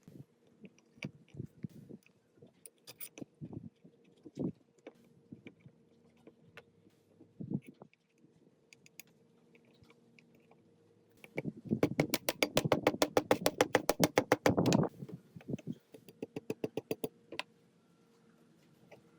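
Metal parts being handled and worked: scattered clicks and taps, then a fast, even run of clicks at about ten a second for some three seconds in the second half, the loudest part, with a faint steady hum underneath.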